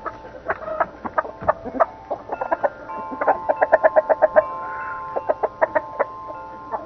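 Chickens clucking, with a fast run of clucks about three seconds in. A steady ringing tone runs under the clucking through the second half.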